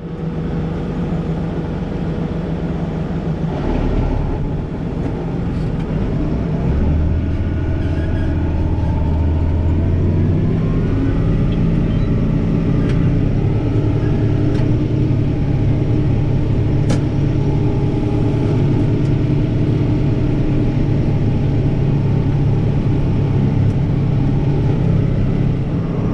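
A vehicle engine running steadily, with its note shifting and rising about seven to ten seconds in.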